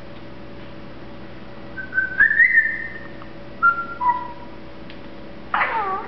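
Eclectus parrot whistling: one rising whistle held for about a second, then two short lower whistled notes. Near the end it breaks into a brief mumbled chatter.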